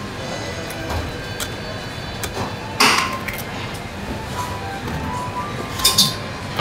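Butcher's knife and steel meat hook knocking and clinking against cow skull bone and the metal table, with a sharp knock about three seconds in and another near the end.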